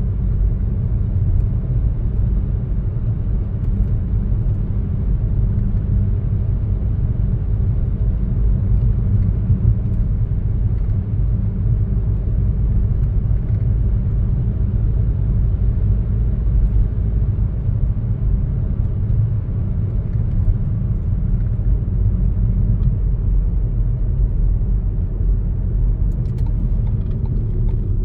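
Car driving at a steady speed: a steady low rumble of engine and tyres on the road, with a few faint ticks near the end.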